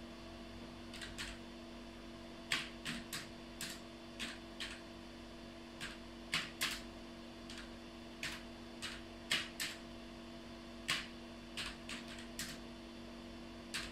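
About twenty sharp clicks at irregular intervals, some in quick pairs, over a steady electrical hum.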